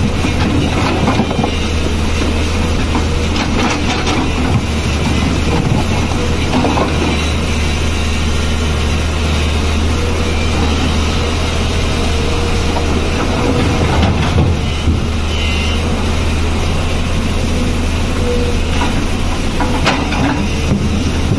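Tata Hitachi tracked excavator's diesel engine running steadily as it works, with a few knocks of rock on the steel bucket as it digs into a stone pile.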